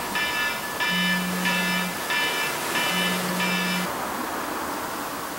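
Smartphone alarm ringing: a high beep repeating about every two-thirds of a second, with a low buzz coming in long pulses underneath. It stops suddenly a little before four seconds in, leaving a steady hiss.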